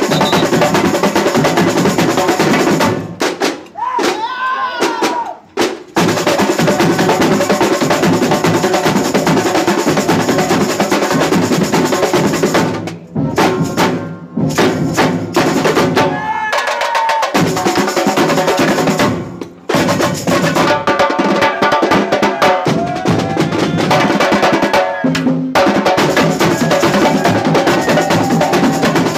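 Carnival batería, a drum corps of large drums played with sticks, beating out a fast, dense rhythm together, with a few short breaks in the playing.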